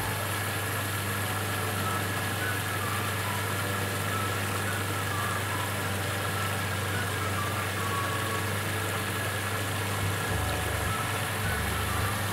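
Monsieur Cuisine food processor's motor and blade running steadily at speed 5, blending tomato-and-bread purée while olive oil drips in through the lid to emulsify it.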